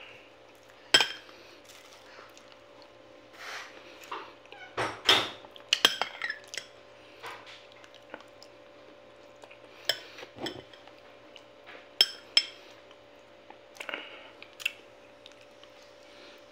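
Metal spoon clinking and scraping against a glass bowl as a creamy dessert is scooped, a sharp clink every few seconds with eating sounds in between.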